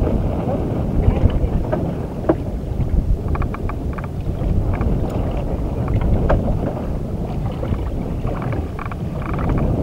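Wind buffeting the microphone on an open fishing boat: a steady, uneven low rumble, with a few light clicks and taps a few seconds in and again near the end.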